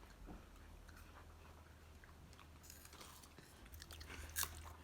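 Faint crunching and chewing of Flamin' Hot Chester's Fries snack sticks, with scattered small crackles and one louder crunch near the end.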